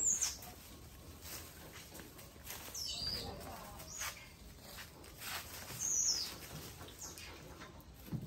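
Small bird chirping: three short, high, falling chirps, one at the start, one about three seconds in and one about six seconds in, over faint rustling of leaves and branches.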